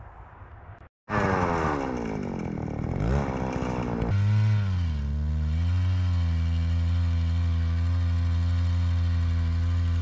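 Electric ice auger (ION, 10-inch) drilling a hole through the lake ice. From about a second in its motor runs loud, falling in pitch for a couple of seconds, then settles to a steady drone under load.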